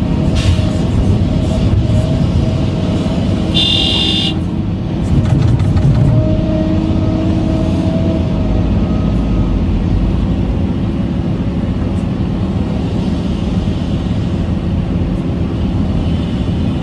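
Vehicle engine running steadily, with one short high-pitched horn toot about three and a half seconds in.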